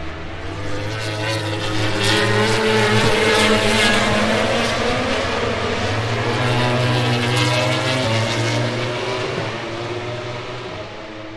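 MotoGP racing motorcycle engines running at high revs, growing louder about two seconds in and fading near the end as the bikes pass.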